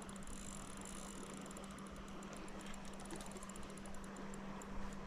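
Steady rushing of river water, with a constant low hum and faint irregular ticking throughout.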